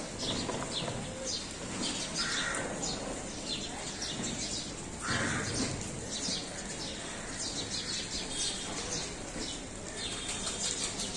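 Outdoor birds chirping over and over, short high chirps several times a second, over steady street background noise, with a couple of brief louder noises about two and five seconds in.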